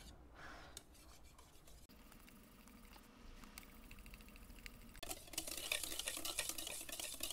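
Wire whisk stirring a thick mix of Jell-O and whipped topping in a mixing bowl: faint soft stirring at first, then about five seconds in, faster whipping with rapid scraping clicks of the wires against the bowl.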